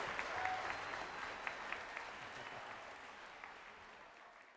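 Audience applauding, with individual claps standing out; the applause fades away over the last couple of seconds.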